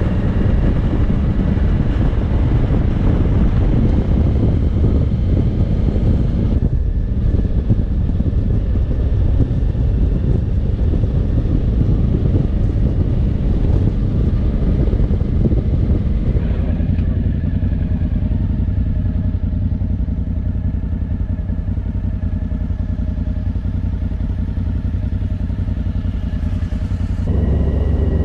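Motorcycle running on the road, a steady engine drone under heavy low rumble. The engine's tones become steadier and plainer about seventeen seconds in.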